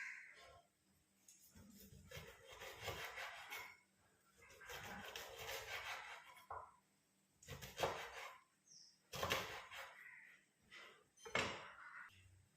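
Kitchen handling sounds: two stretches of rubbing or scraping, then three sharp knocks of utensils or dishes about a second and a half to two seconds apart.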